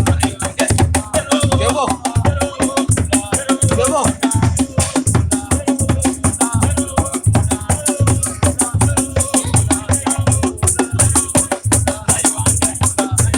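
Praise music with a steady low drum beat and a shaker rattling along, with a voice or voices singing over it.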